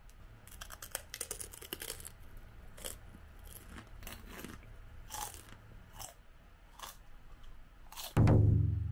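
Crisp rice crackers being bitten and chewed: a quick flurry of crackling crunches, then single crunches about once a second. Near the end a loud low tone sweeps down in pitch and fades out, a transition sound effect.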